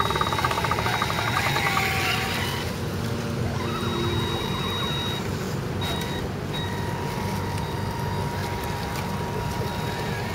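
Axial SCX10 Land Rover Defender 110 scale RC crawler driving slowly over a dirt trail, its electric motor and gears whirring under a steady low rumble. Steady high-pitched tones sound above it, dropping out briefly near the middle.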